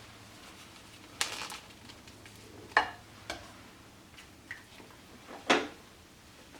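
Kitchenware being handled: a short rustle about a second in, then a few sharp clicks and knocks, the loudest near the end.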